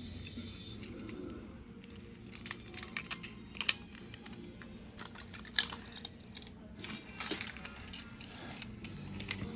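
Irregular light clicks and clatters of small hard objects, some close together and some spaced out, over a low steady hum.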